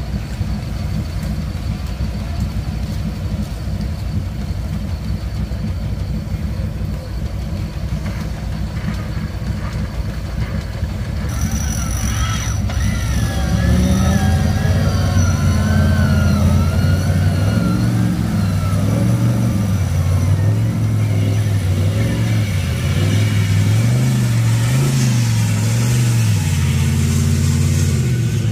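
Off-road competition 4WD engine running at a steady low idle, then from about halfway revving up and down over and over, its pitch rising and falling in short swells.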